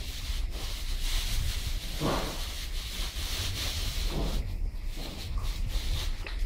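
Straw rustling and crunching as puppies scramble and roll in it, over a steady low rumble of wind or handling on the microphone, with two louder brief rustles about two and four seconds in.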